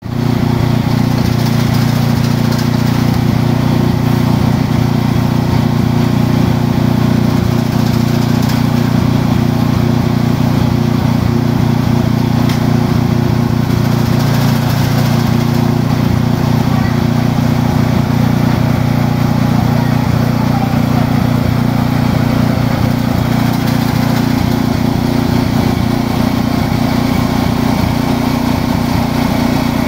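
Motor-driven leaf chopping machine running steadily alongside a large drum fan, a constant loud mechanical hum, as indigo plants are fed through and the cut leaves are blown out of the chute.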